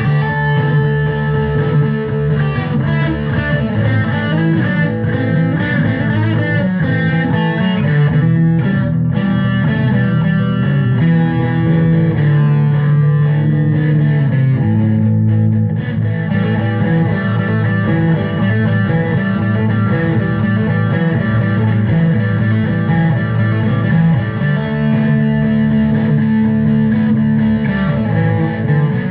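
Background rock music with electric guitar and bass guitar.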